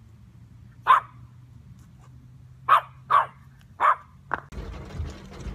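French bulldog barking: five short, sharp barks, spaced irregularly, one about a second in and four in quick succession between about three and four and a half seconds in. Near the end a steady hiss takes over.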